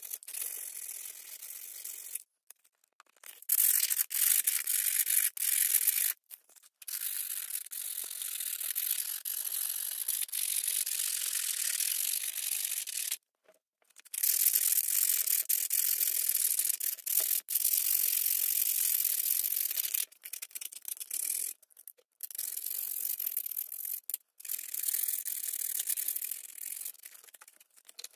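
Sandpaper rubbing back and forth over the rusty steel jaws of a pair of needle-nose pliers, sanding off the rust: a scratchy hiss broken by several brief gaps.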